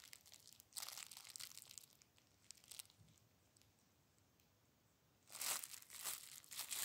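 Thin clear plastic bag crinkling as gloved fingers handle it. There are short rustles in the first second and a half and once more about two and a half seconds in, a quiet stretch, then louder crinkling near the end.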